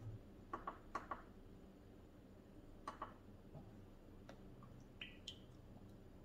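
Faint, scattered clicks and taps of a plastic preservative bottle being handled over a plastic measuring jug on a digital scale.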